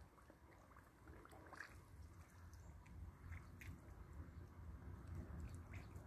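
Faint wet dabbling of a greylag goose feeding with its bill under shallow water: small splashes, drips and nibbling clicks, scattered irregularly over a low rumble.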